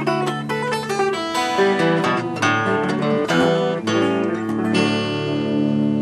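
Steel-string acoustic guitar and electric guitar playing a duet of quick plucked melody notes over a bass line. The last chord is struck about three-quarters of the way in and is left to ring out, ending the piece.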